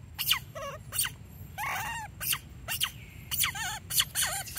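Young macaque crying: a rapid run of shrill squeals and wavering cries, about two a second, some sliding down in pitch.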